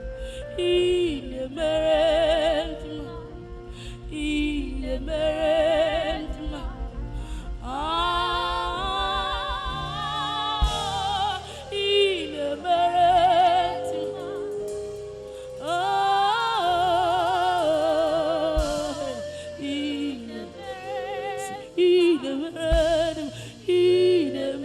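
Live worship music: a solo voice sings long, ornamented notes with strong vibrato over sustained keyboard and bass, with a few low drum hits.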